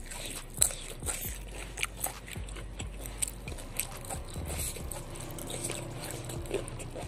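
Close-miked eating sounds: biting and chewing food, with irregular crisp clicks and crunches. One sharp click about half a second in is the loudest.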